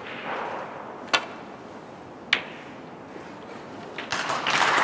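Snooker cue striking the cue ball with a sharp click about a second in, then a second sharp click of the cue ball hitting an object ball a little over a second later. Audience applause starts near the end.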